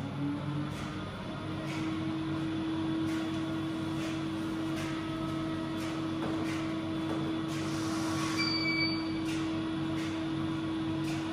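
A motor running with a steady hum, its pitch rising at the start and then holding level; a short high beep sounds about eight and a half seconds in.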